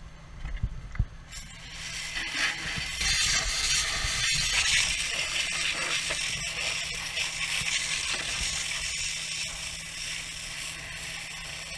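Heap of burnt recyclable debris crackling and hissing with dense rapid crackle, starting suddenly about a second in and continuing steadily.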